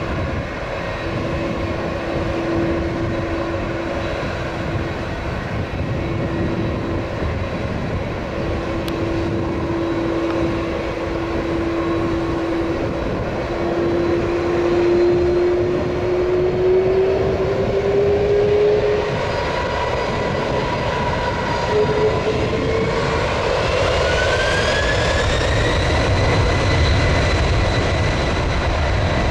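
Boeing 767-300's twin jet engines running with a steady whine. About two-thirds of the way in they spool up to higher thrust: a rising whine that levels off, with a deepening low rumble.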